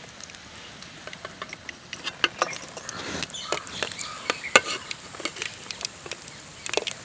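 Lauki (bottle gourd) kofta balls sizzling in hot refined oil in a kadhai. Over the hiss come many short clicks and scrapes as a metal ladle scoops the balls out onto a steel plate, the sharpest about four and a half seconds in.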